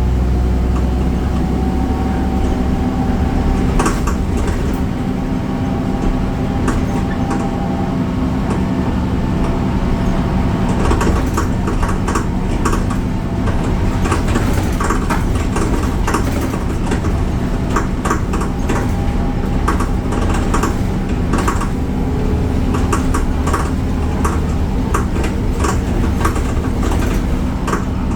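BredaMenarini Avancity Plus city bus running, its Deutz diesel engine and ZF gearbox giving a steady hum. A heavy low rumble eases off about two seconds in, and from about ten seconds in the hum is joined by many short rattles and clicks.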